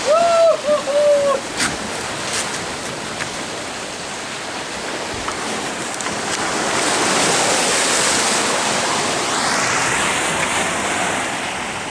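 Ocean surf washing against the rocky shore in a steady rush that swells louder for a few seconds after the middle. There is a brief raised voice right at the start.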